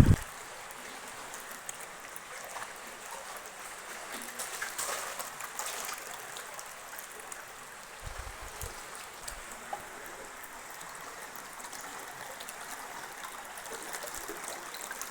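Steady rush of flowing stream water, with a couple of low thumps about eight seconds in.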